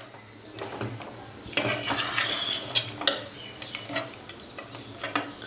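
A steel ladle stirs thin chicken curry gravy in a metal pot: liquid swishing, with a few sharp clinks of the ladle against the pot.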